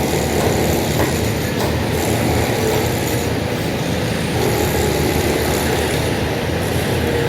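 Heavy dump truck's diesel engine running steadily as the truck moves down onto the fill.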